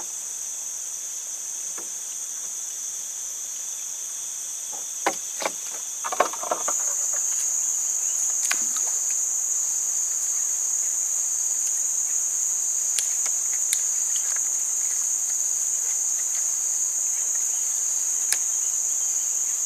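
A steady, high-pitched chorus of insects in riverside forest that gets louder about a third of the way in. A few light clicks and knocks come from fishing tackle being handled in a wooden boat.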